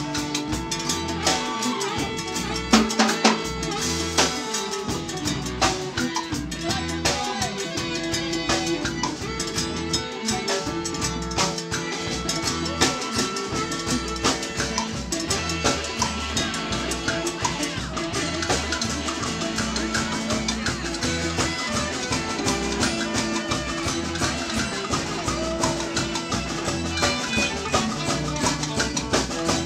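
Live band playing: guitars with a drum kit keeping a steady beat, with no speech.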